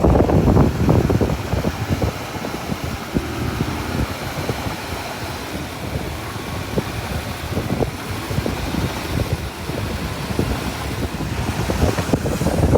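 Mitsubishi BD2F bulldozer's diesel engine working, an uneven mechanical noise with many short knocks, louder at the start and again near the end. Wind noise on the microphone lies over it.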